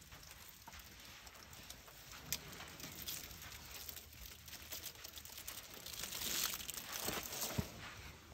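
Rustling and scuffing of elephants moving in dry sand around a calf lying on the ground, a crinkling noise with a few sharp ticks, busiest about six to seven seconds in.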